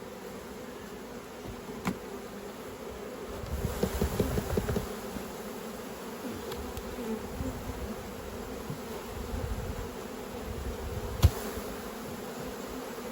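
Honeybees from an opened hive buzzing steadily. A burst of louder rustling comes about four seconds in, and short sharp knocks at about two and eleven seconds, the second the loudest, as frames and boxes are handled.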